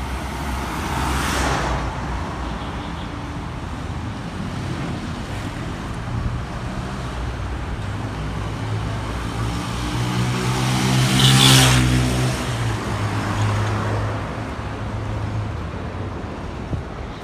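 Motorway traffic rumbling steadily, with vehicles passing. One passes close about eleven seconds in, its engine note building up, peaking and fading away.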